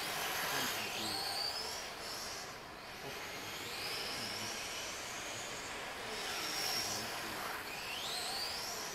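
Electric 1/10-scale RC cars' brushless motors whining, the pitch climbing several times as the cars accelerate on the straights, over a steady hiss of tyres on concrete.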